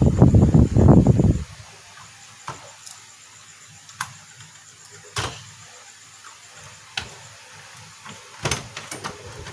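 Plastic parts of a projector being pulled apart by hand: a loud scraping rattle for about a second and a half, then a few scattered light clicks and taps.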